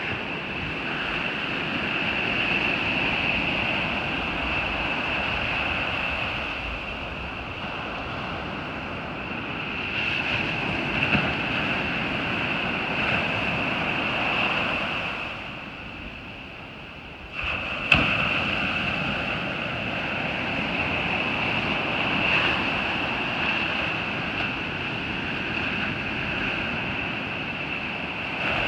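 Ocean surf rushing onto a beach, mixed with wind noise on the microphone. Past the middle the noise eases for a couple of seconds, then returns abruptly with a sharp click.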